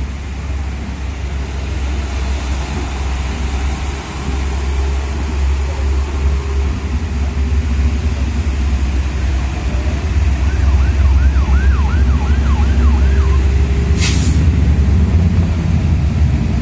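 Heavy diesel truck engine of a Hino 500 wingbox truck running with a deep drone that grows louder as the truck draws close. A quick run of rising-and-falling chirps comes about eleven seconds in, and a short sharp hiss follows about fourteen seconds in.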